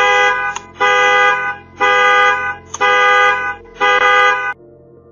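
Car alarm sounding the horn in five loud blasts, about one a second, set off by an attempted break-in.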